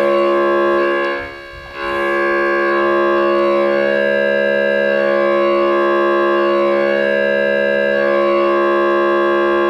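Ploytec PL2 analog mini synthesizer holding one steady note on its waveform 6, a pulse wave mixed with a second pulse two octaves up. Both pulse widths are swept together, so the tone's colour slowly shifts back and forth. The note briefly drops in level about a second and a half in.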